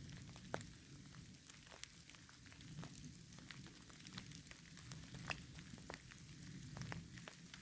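Light rain: scattered individual drops ticking irregularly close to the microphone, over a faint low rumble.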